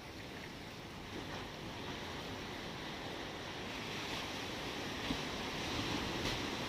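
Ocean waves washing, a steady rushing that grows gradually louder.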